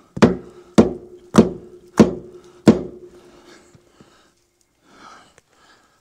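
Five hammer blows on steel, about two-thirds of a second apart, driving a Ford 550 backhoe's steering cylinder end down onto its tapered seat. Each strike leaves a metallic ring that carries on and fades about a second after the last blow.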